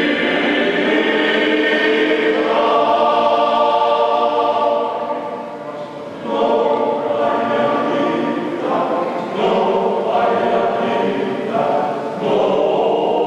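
A choir singing in long held phrases, with short breaks about six, nine and twelve seconds in.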